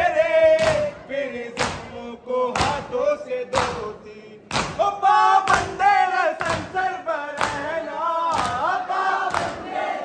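Shia mourners' matam: a crowd of men beating their chests in unison, about one stroke a second, under a noha lament that the men sing together.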